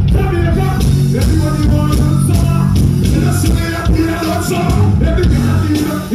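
Loud dancehall music with a vocal over a heavy, steady bass line, played through a large stage sound system.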